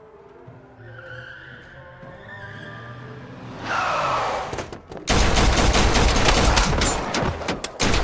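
Dense, rapid gunfire, with many shots overlapping as several guns fire at once, starting abruptly about five seconds in. Before it there is a low music score and a brief rushing swell.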